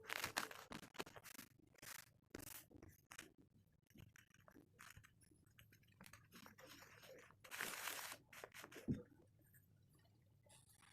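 Purple kinetic sand being worked: irregular soft crunches and scrapes, with a longer scrape past the middle and a sharp tap shortly after.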